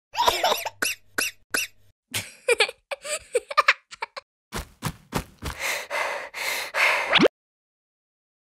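Cartoon squeak sound effects: a series of short, high, bending squeaks, then a longer run of rougher, denser squeaking that cuts off suddenly about seven seconds in.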